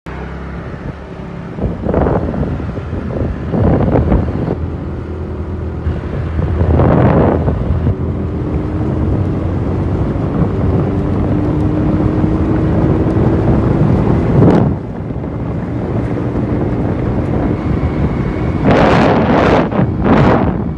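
TVS Jupiter scooter's single-cylinder engine accelerating, its note climbing slowly as the scooter picks up speed. Heavy wind buffeting on the microphone covers it, in loud gusts that are strongest near the end.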